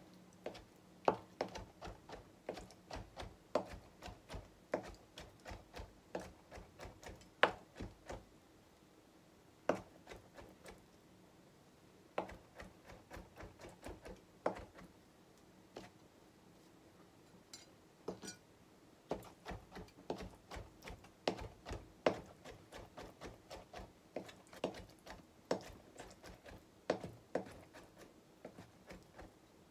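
Chef's knife chopping cooked mushrooms on a cutting board: runs of quick knocks on the board, two or three a second, broken by short pauses.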